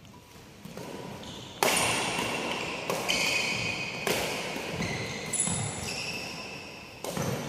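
Badminton rally: rackets striking the shuttlecock, four sharp hits, the first three about a second apart and the last after a longer gap, each followed by a brief high ringing.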